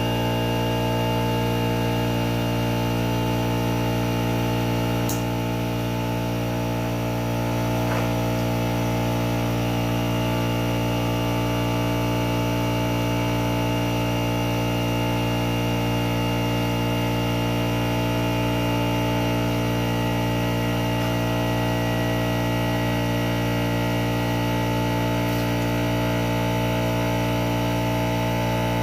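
A steady machine hum, like a motor running, holding several fixed tones without change.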